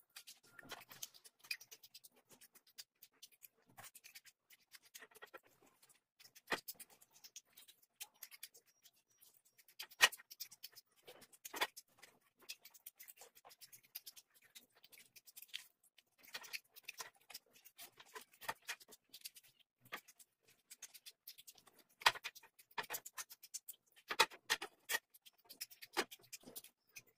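Close-miked eating sounds: chewing and lip-smacking while gnawing meat off a curried mutton leg bone, with oily fingers working the rice. Irregular wet clicks and smacks, a few sharper ones standing out.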